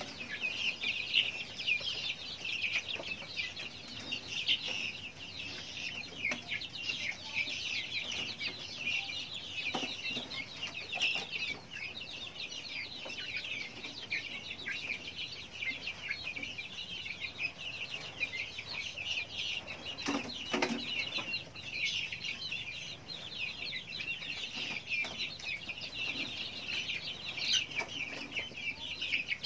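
A flock of young fowl chicks cheeping continuously, many short high-pitched peeps overlapping one another without a break.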